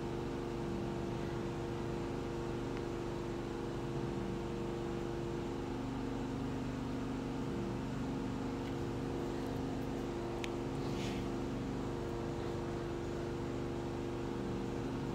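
A steady, even background hum with several steady tones, unchanging throughout; a faint click about ten and a half seconds in.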